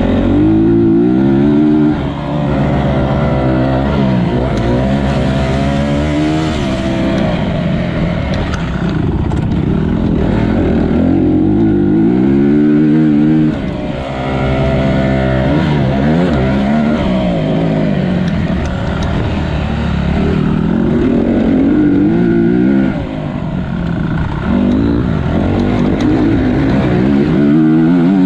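Motocross bike engine heard close up while ridden hard. Its pitch climbs through each gear and drops back at every shift. The throttle shuts briefly three times, near 2, 13 and 23 seconds in, before it pulls hard again.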